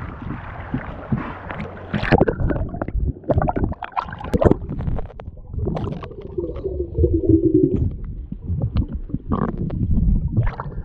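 Water sloshing over a camera held at the waterline, then muffled underwater sound from the submerged camera: water movement with many irregular clicks and knocks and a brief low hum.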